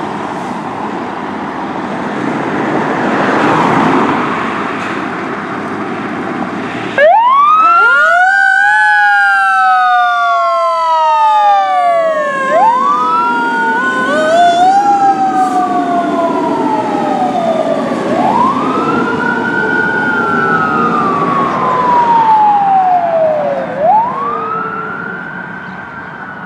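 Fire engine's diesel engine running and swelling as the rig pulls out. About seven seconds in its siren starts abruptly and wails in long sweeps, rising quickly and falling slowly, over and over. There is a brief louder blip near the end.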